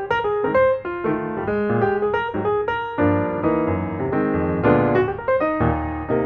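Background piano music: a steady run of quick notes over changing chords.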